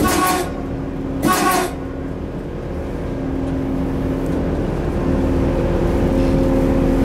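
Inside the cab of a Eurosprinter class 120 electric locomotive: two short blasts of air about a second apart, then the steady hum of the locomotive's electric drive, slowly getting louder.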